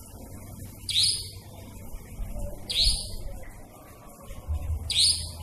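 A nightjar calling at night: three short, sharp, high-pitched calls about two seconds apart, each rising slightly.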